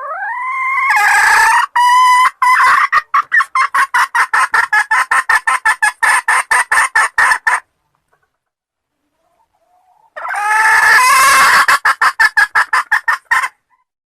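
Wild junglefowl calling loudly twice. Each call rises at the start, then breaks into a rapid stutter of short pulses. The first runs about seven seconds; the second, shorter one begins after a pause of about two and a half seconds.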